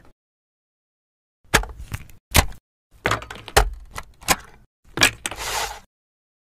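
A run of sharp plastic clicks and knocks, about seven over four seconds starting a second and a half in, as a cable connector is pushed and seated into a game console's port, ending in a short rustle.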